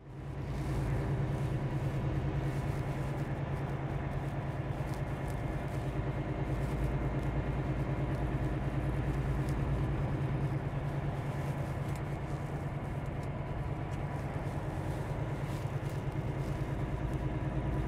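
Semi truck's diesel engine running at a steady cruise, heard from inside the cab as an even low drone. It fades in within the first second.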